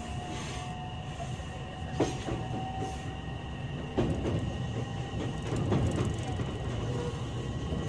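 Running sound heard inside the motor car of a JR West 227 series electric train with Toshiba IGBT inverter drive: a steady rumble of wheels on rail with a faint steady tone over it. A few sharp knocks of the wheels over rail joints come about two and four seconds in, with more near the end.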